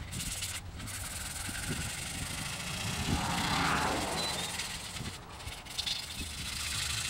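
Sandpaper, 1000 grit, rubbed by hand over feather-fill polyester primer on a steel truck cab: an irregular rubbing hiss that swells and fades with the strokes, over a low rumble.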